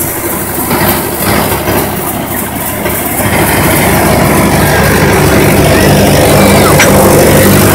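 Mahindra 585 DI tractor's diesel engine running under load, driving a wheat thresher, with the thresher's steady drone and clatter of grain and straw. It gets louder a little over three seconds in.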